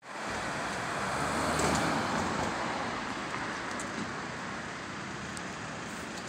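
Road traffic noise on a city street, swelling as a vehicle passes close about one and a half seconds in, then settling to a steady background rush.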